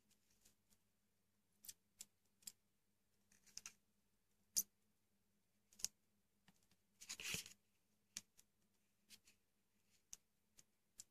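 Near silence with scattered faint clicks and taps from a soldering iron and a pin header being handled on an LED strip's solder pads. A brief crackle of about half a second comes around seven seconds in, under a faint steady hum.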